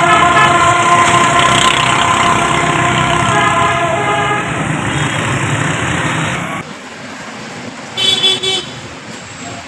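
Road traffic with several vehicle horns sounding over one another. About six and a half seconds in the level drops abruptly to quieter traffic, and one short horn toot follows about a second and a half later.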